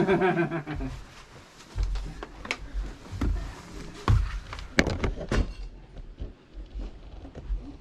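Scattered knocks and thuds with low rumbling bumps, the sounds of people moving about and handling things in a derelict house.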